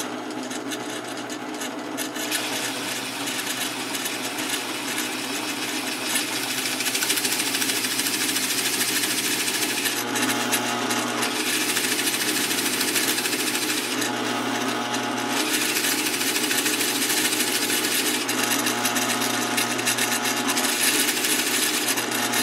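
Drill press running a 1-1/4-inch Forstner bit into quarter-inch oak, boring a shallow recess: a steady motor hum under a rasping cutting noise. The cutting noise grows about two seconds in and eases off briefly twice in the second half.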